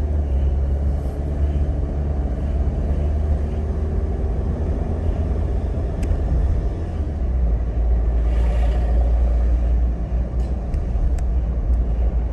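A car driving slowly along a paved road: a steady low engine-and-road rumble, with a brief swell of hiss about eight seconds in.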